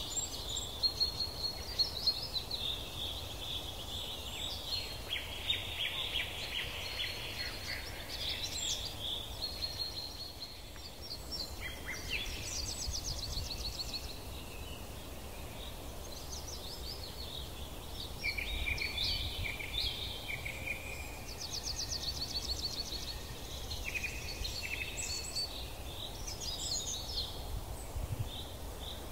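Several songbirds singing: chirps and a few rapid trills from different birds come and go over a steady low rumble.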